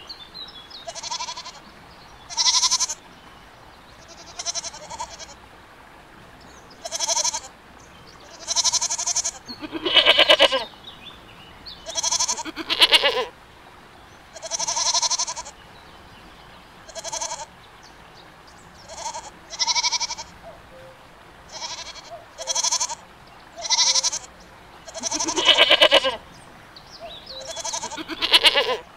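Goats bleating over and over, about seventeen separate calls with short pauses between. Most calls are short, and a few are louder and longer.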